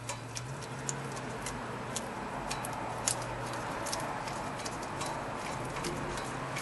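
Scattered light metallic clicks and ticks as a loosened front brake caliper bolt is unscrewed by gloved hand, over a steady low hum.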